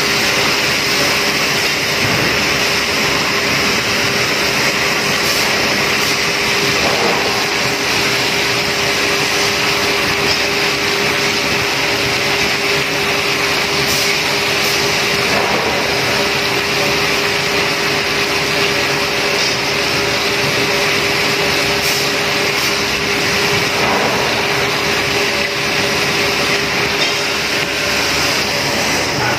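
Bridgeport CNC machine milling a metal workpiece under flood coolant: a steady run of spindle and cutting noise mixed with the hiss of the coolant spray, with a steady tone underneath.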